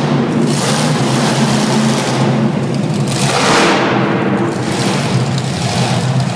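BIGFOOT monster truck's engine running hard, a loud steady drone with a surge of noise about three and a half seconds in as the truck climbs up onto a row of crushed cars.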